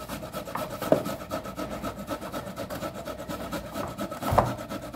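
Fast, even scraping or rubbing, about ten strokes a second, over a steady hum, with a knock about a second in and a louder knock near the end.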